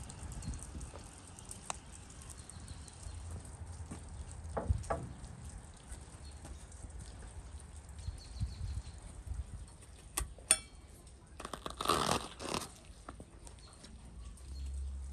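Large kitchen knife cutting into a whole red cabbage on a wooden board: a few knocks on the board, then a louder stretch of crunching past the middle as the blade goes through the leaves.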